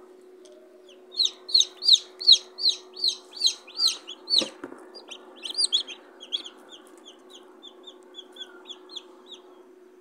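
Newly hatched chicks peeping: a run of loud, high peeps, about two or three a second, then softer, shorter peeps, over a steady low hum. A single soft knock about four seconds in.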